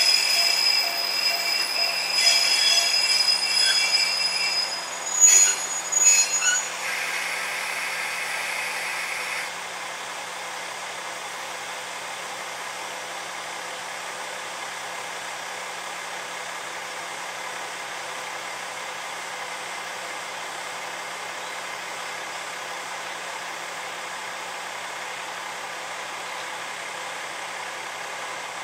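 KiHa 120 diesel railcar braking to a stop: high-pitched wheel and brake squeal for the first several seconds, with two sharp louder squeals around five and six seconds in. After about nine seconds it is stopped, and its diesel engine idles steadily.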